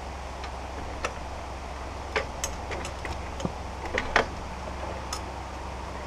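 Irregular sharp clicks and taps from hands working on the sawmill's steel rail and frame, clustered about two and four seconds in and loudest just after four seconds, over a steady low hum.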